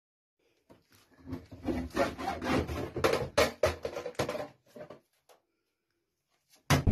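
Hacksaw sawing into a green plastic road-sign figure: a quick run of rasping back-and-forth strokes that starts about a second in and stops about five seconds in.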